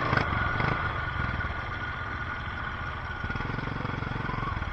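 ATV engine idling steadily, picking up a little near the end.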